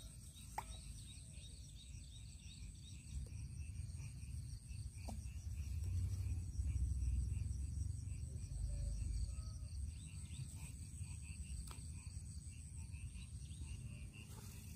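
A steady, pulsing chorus of insects, cricket-like, runs through. Under it sits a low rumble that swells in the middle, and a few faint ticks are heard.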